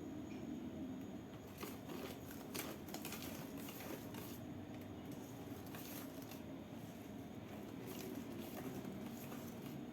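Cake batter of orange juice, oil, sugar, eggs and flour being beaten by hand in a bowl: irregular scraping and light clicks of the utensil against the bowl over a low hum.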